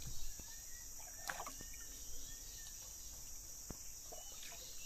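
Steady high-pitched insect chorus from the riverside forest, with a few faint short chirps over it.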